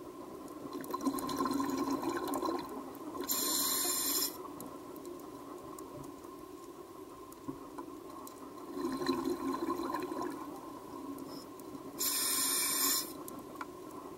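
Scuba diver's breathing through a regulator, heard underwater: twice, about two seconds of crackling exhaust bubbles followed by a short, high hiss of inhaled air, over a faint steady hum.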